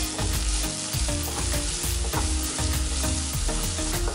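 Spiced onion-tomato masala sizzling in oil in a nonstick wok while a spatula stirs it, scraping the pan in repeated strokes.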